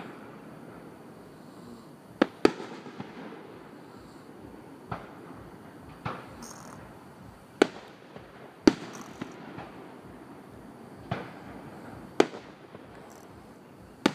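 Aerial firework shells bursting: about nine sharp bangs at uneven intervals, some in close pairs, each trailing off in a short echo.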